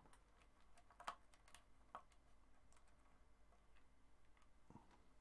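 Near silence with a few faint, scattered small clicks and taps, the sound of hands handling wires and parts in a Les Paul's control cavity.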